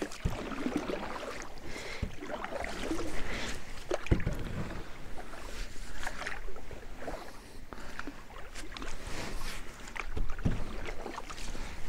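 Paddling a small wooden boat: irregular swishing and splashing of the paddle in the water, with a few sharp knocks, the clearest about two and four seconds in.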